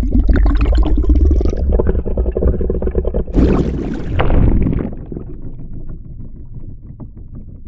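Dense underwater bubbling with a deep rumble, full of rapid small pops. A little over three seconds in, a brief hissing rush of bubbles surges up, then the bubbling thins out and fades.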